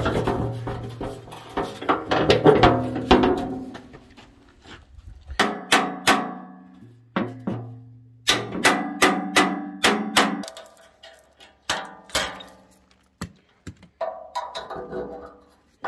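Background music with held pitched notes and sharp percussive hits.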